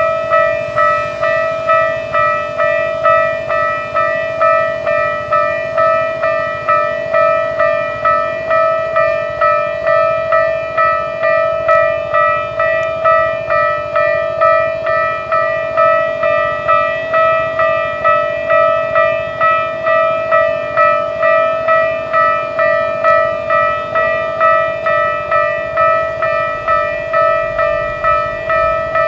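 Japanese level-crossing warning alarm on the Keikyu Main Line ringing on and on, the same note struck a bit under twice a second.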